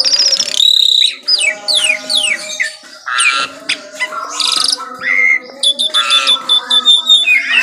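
A pied starling (jalak suren) singing a long, varied song: whistled notes that glide up and down, quick runs of rapid repeated notes and harsh chattering calls, with only brief pauses.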